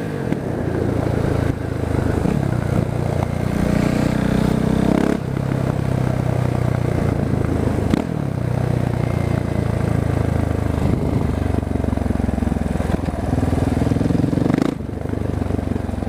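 Husqvarna 701 Supermoto's big single-cylinder engine pulling hard under way. Its pitch climbs, then drops sharply about a second and a half in, about five seconds in and again near the end as the throttle is shut or a gear is changed.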